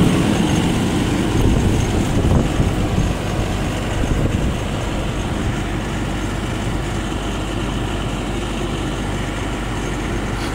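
Rice combine harvester's diesel engine running steadily.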